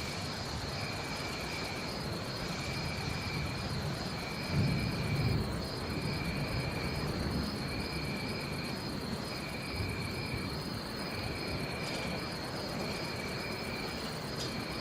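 Steady rain with a jungle ambience: a high-pitched call repeats about once a second over a continuous higher trill. A brief low rumble comes about four and a half seconds in.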